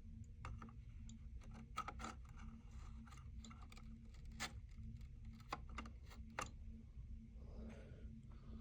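Faint, irregular clicks and taps over a low steady hum; no alarm is sounding.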